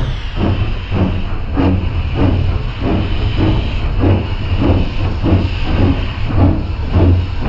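Narrow-gauge saddle-tank steam locomotive working slowly past at close range: a steady hiss of escaping steam over rhythmic exhaust chuffs, about two to three a second.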